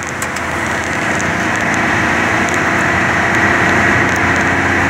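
Steady engine and road noise of a running vehicle, with a low hum, swelling slightly over the first couple of seconds and then holding even.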